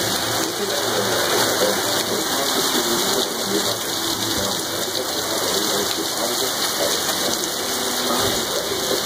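Torrential rain pouring down onto pavement, a steady rushing hiss that keeps an even level throughout.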